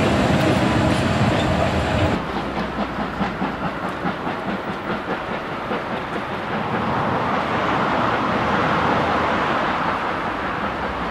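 Passing steam-hauled passenger train: a heavy low rumble from the working steam locomotive and coaches, then, after an abrupt change about two seconds in, a quick regular clicking of wheels over rail joints as the coaches roll by, giving way to a swelling rush of running noise.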